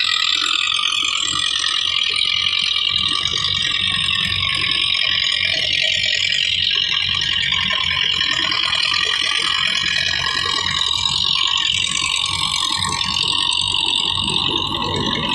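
Belarus 510 tractor's diesel engine running steadily under load while it drives a wheat thresher, with the thresher's rattle and whir mixed in.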